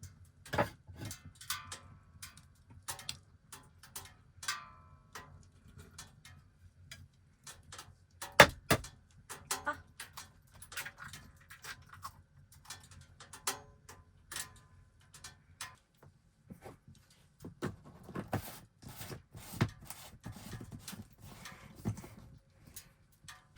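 Irregular clicks, knocks and light clinks of small objects being handled, a few ringing briefly, with one louder knock about eight seconds in.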